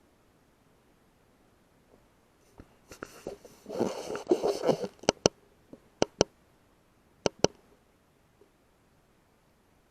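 Rustling handling noise for about two seconds, then three pairs of sharp clicks about a second apart.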